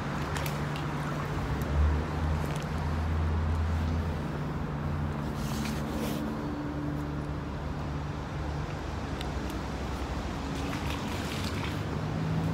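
Steady low engine hum of motor traffic, with a few faint clicks.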